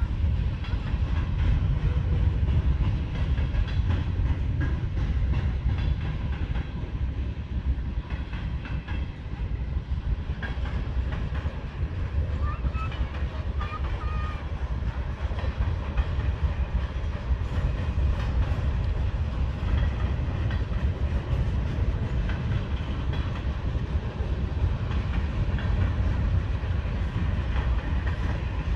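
Freight cars of a passing mixed freight train rolling by close, with a steady low rumble of steel wheels on rail and clickety-clack over the rail joints.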